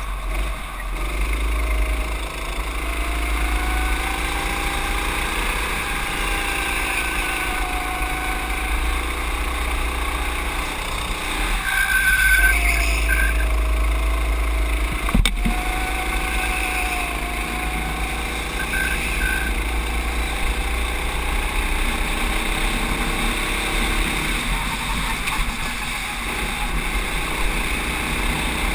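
Racing kart engine running hard, its pitch rising and falling again and again as the kart accelerates out of corners and lifts into them, over a steady low rumble. One sharp knock about halfway through.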